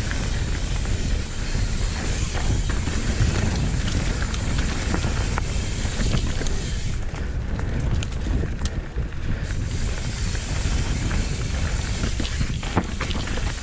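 Downhill mountain bike ridden fast down a dry dirt trail: steady tyre and wind noise on the camera microphone, with a scatter of rattles and knocks from the bike over rough ground.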